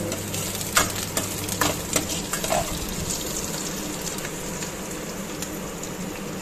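Food sizzling in a pan on the stove while kadhi is cooked, with a spoon clicking against the pan several times in the first couple of seconds, then a steady sizzle.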